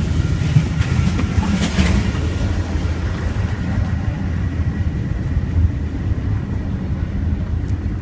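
Steady low rumble of a moving passenger train heard from inside a Budd dome car, its wheels and trucks running on the rails. A few light knocks come about one to two seconds in, and a faint thin high whine runs through the middle.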